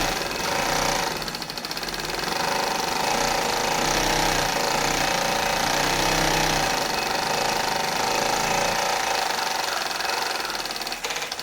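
Reliable DB-189 industrial lockstitch sewing machine running steadily at a rapid, even stitch rate, sewing through thick monofilament geotextile fabric.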